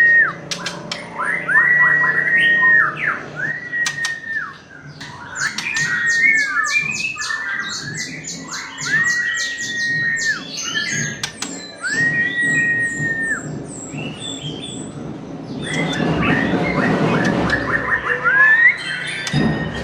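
A songbird singing: clear whistled notes that rise, hold and then drop, repeated every second or two, mixed with rapid high chattering trills in the middle.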